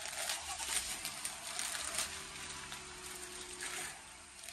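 Plastic mailer bag being torn open and handled, with scattered soft crinkles and rustles.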